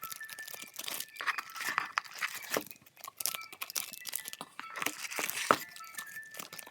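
Packaging being crinkled and torn open during an unboxing, a busy string of rustles and sharp crackles with its loudest snap about five and a half seconds in.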